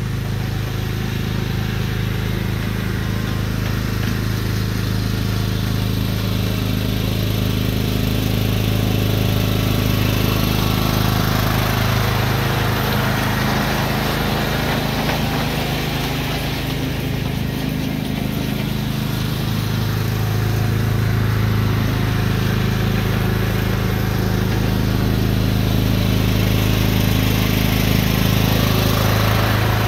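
John Deere riding lawn tractor engine running steadily while it tows a lawn aerator across the yard, growing louder as it passes close by.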